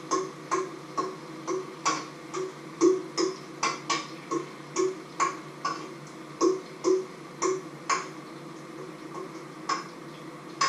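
A metal utensil clinking against cookware in a steady rhythm, about two short ringing clicks a second, thinning out in the last few seconds.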